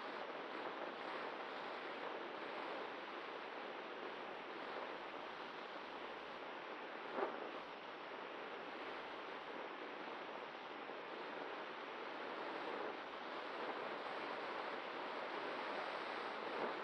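Steady rush of airflow buffeting the onboard camera of a Cularis model glider soaring in thermals, with one short knock about seven seconds in.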